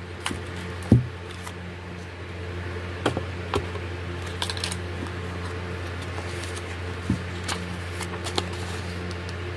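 Hands handling a cardboard card-deck box and a small paper guidebook: scattered light taps, rustles and page flicks, with a sharper knock about a second in. A steady low hum runs underneath.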